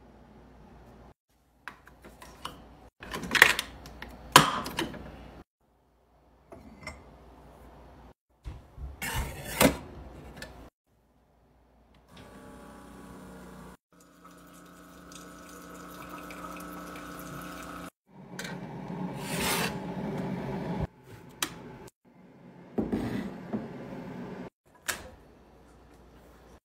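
Kitchen handling sounds: sharp plastic clicks and light knocks of a K-cup pod and containers being handled and set down, the loudest two a second apart. Then a Keurig single-serve coffee maker brewing, a steady hum for a few seconds followed by a louder rushing hiss, and more light clatter near the end.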